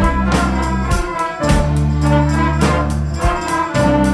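A children's instrumental ensemble of acoustic guitars, clarinets and cello playing an upbeat tune with a steady beat over held bass notes.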